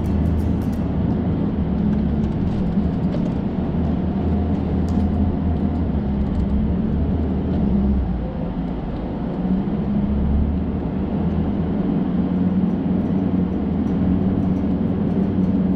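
Six-wheeler truck's engine running steadily while driving, its low note dipping briefly about halfway through and then picking up again.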